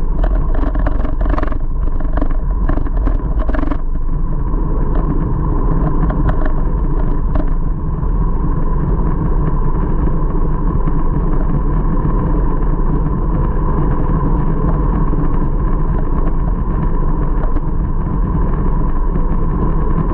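Steady wind and road noise from a road bike rolling along a paved road, heard through a handlebar-mounted camera with wind buffeting the microphone. A run of sharp ticks sounds over the first few seconds.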